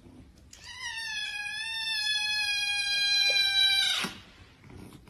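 A cat's single long, drawn-out meow lasting about three seconds, holding nearly one pitch and sagging slightly toward the end.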